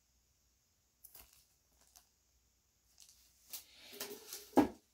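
Vinyl 45 singles in plastic sleeves being handled: a few soft rustles and clicks, then steadier rustling of sleeves and a sharp knock near the end.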